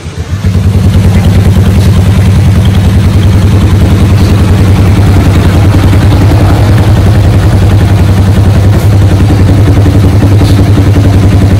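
Yamaha SZ cafe racer's single-cylinder four-stroke engine idling steadily in neutral with an even, loud pulse, coming in about half a second in.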